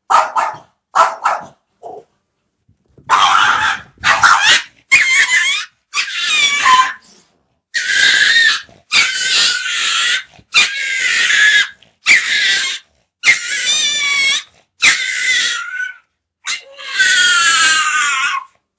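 Dog giving a string of about a dozen loud, pitched calls, each under a second or two long, after a few short ones at the start.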